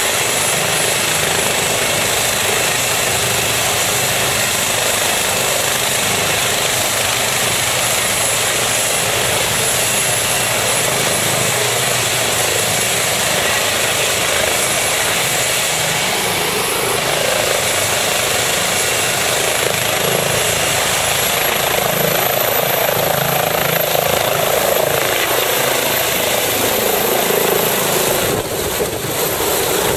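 Eurocopter EC135 air-ambulance helicopter running close by with its rotor turning, then powering up to lift off and climb overhead. Its high turbine whine rises in pitch about two-thirds of the way through as it takes off.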